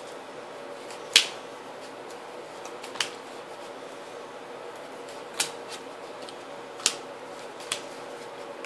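Trading cards being snapped down on the table, five sharp clicks a second or two apart, over a faint steady room hum.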